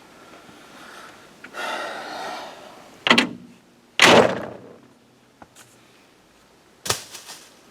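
A short scraping rush, then three loud thunks and bangs about a second or three apart. The middle bang is the loudest and rings out briefly, the sound of parts or tools being handled and set down during an engine repair.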